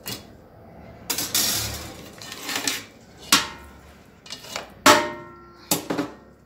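Aluminium cookware and a metal wire grill rack clattering as they are handled: a scraping rustle about a second in, then several sharp clanks that ring briefly, the loudest about five seconds in.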